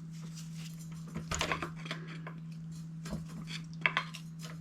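Hand tools clinking and scraping against metal in a few short bursts while the exhaust header is worked loose from the aluminum engine, over a steady low hum.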